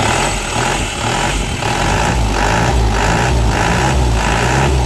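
Diesel engine running at idle, with a regular pulsing about twice a second. It runs because its fuel shut-off solenoid is wired straight to the battery positive, bypassing the faulty supply wire.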